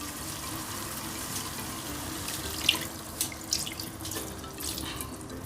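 A little water being poured into a pan of frying spiced quail: a steady rush of pouring water, with a few light clicks in the second half.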